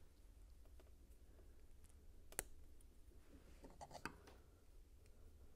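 LEGO bricks being pressed together by hand: one sharp plastic click a little over two seconds in and a few softer clicks around four seconds, with faint handling of the pieces in between.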